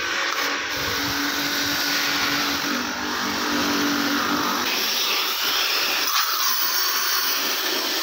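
Electric pressure washer's motor and pump running with a steady hum while the water jet hisses from the spray gun. About six seconds in the low hum drops away, leaving mostly the hiss of the spray.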